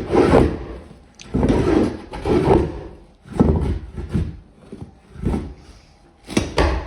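Glued-down commercial carpet being pried and ripped up from the floor with a shingle-removal pry tool: a run of short rasping tears, each a fraction of a second, about one a second and uneven, as the old adhesive grips and lets go.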